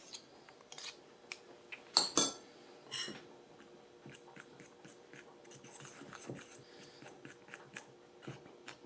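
Metal spoons clinking and scraping against a mixing bowl as melted butter is worked into flour, with the loudest pair of clinks about two seconds in and lighter taps and scrapes after.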